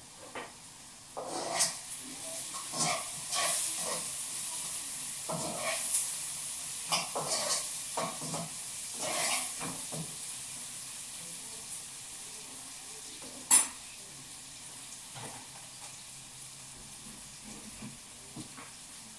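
Food sizzling in a frying pan while a utensil stirs it, clinking and scraping against the pan. The clinks come thickly in the first half, and there is one sharp clink a little past the middle.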